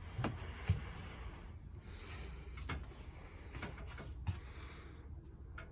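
Scattered soft knocks and clicks of footsteps on a motorhome floor and of the phone being handled, over a low steady rumble; one knock a little past four seconds in is the loudest.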